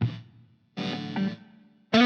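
Electric guitar, a Strat-style partscaster, played with a distorted tone: a chord struck right at the start and left to decay, then a second short chord phrase a little under a second in that dies away.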